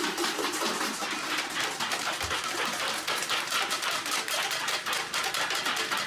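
Many metal pots, pans and bowls being struck with sticks, a dense, continuous clatter of rapid strikes: people banging pots in protest against the coup.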